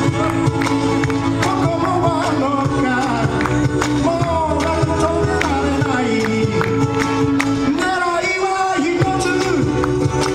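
Live band music through a stage PA: a man singing lead over a strummed ukulele and electric bass.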